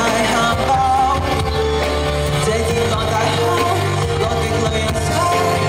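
Live concert performance of a Cantonese pop love song: a male singer sings into a microphone over instrumental backing with a sustained bass line.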